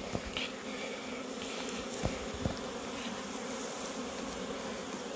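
Honeybees buzzing steadily over an opened hive, a continuous hum from a mass of bees on the frames, with a few light knocks near the middle.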